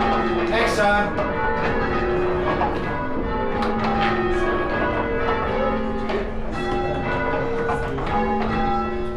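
Six church tower bells being rung in turn by a band of ringers, a steady run of strikes with each bell's tone ringing on under the next.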